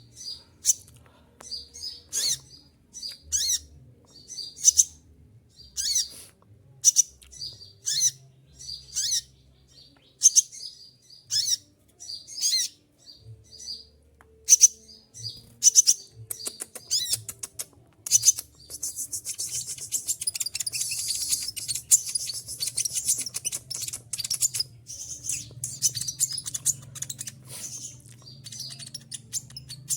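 Konin (kolibri ninja) sunbird calling: sharp, high, short notes about once a second, breaking into a fast, continuous high twittering song about two-thirds of the way through.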